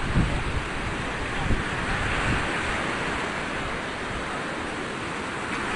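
Sea surf: waves breaking and washing ashore, a steady rushing noise that swells about two seconds in.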